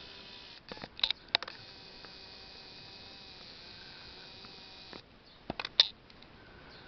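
Sharp clicks and taps of a handheld camera being handled and zoomed, in a cluster about a second in and again near the end, over a steady faint hiss and hum.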